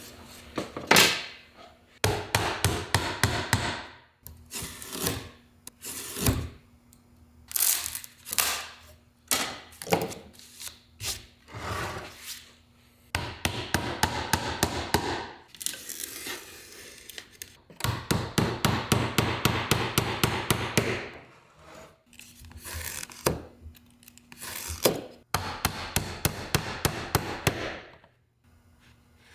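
Rapid runs of light hammer taps and wood knocks, coming in several bursts of a few seconds each, as cedar shingles are nailed onto a small wooden birdhouse roof.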